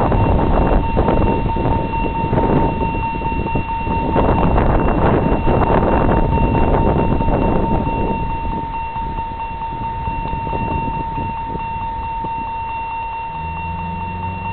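Wind rumbling on the microphone, easing after about eight seconds, with a steady high-pitched tone underneath throughout. Near the end the approaching Class 66 diesel locomotive sounds a low pitched note for about two seconds.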